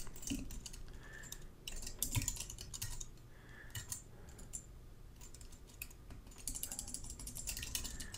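Computer keyboard being typed on: quiet runs of keystroke clicks, thinning out in the middle and coming thickest near the end.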